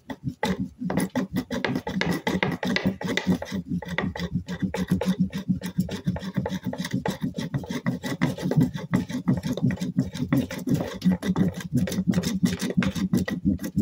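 A fire roll being rolled hard and fast under a flat wooden board on a plywood table: a steady run of quick, rhythmic rasping strokes of wood rubbing on wood. The friction is meant to heat the roll until it smoulders into an ember.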